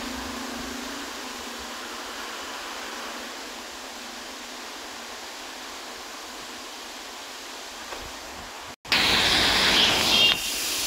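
Waterfall rushing as a steady hiss-like noise. After a short break about nine seconds in, it jumps to a much louder, fuller rush of water up close.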